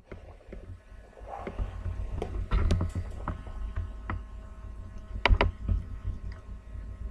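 Handling noise from a handheld camera: a steady low rumble with irregular clicks and knocks, the loudest a pair of knocks a little past five seconds in, over a faint steady hum.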